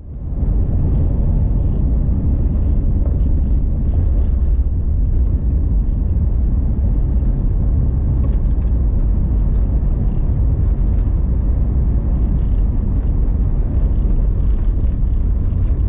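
A vehicle driving along a dirt and gravel road, heard from inside the cabin: a steady low rumble of tyres on gravel and engine. It fades in at the start.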